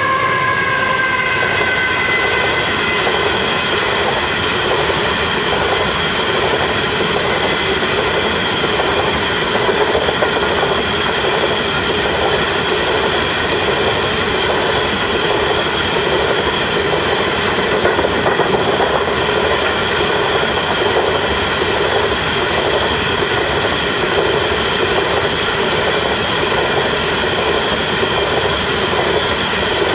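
Long coal train rolling past: steady, loud wheel-on-rail noise with the rapid clatter of wagons running over the rails. A tone falls away in the first couple of seconds.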